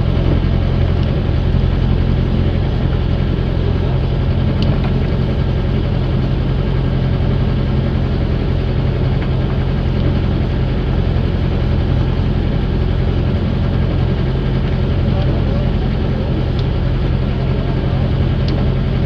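Outrigger fishing boat's engine running steadily at a constant low, throbbing pitch while the boat trolls, with no change in speed.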